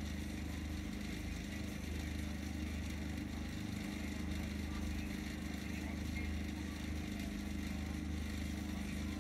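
A steady, low machine hum with a few held tones, unchanging throughout.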